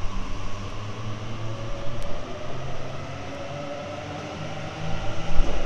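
Electric suburban train running at the station: a steady rumble and hiss with low held hums, growing louder near the end.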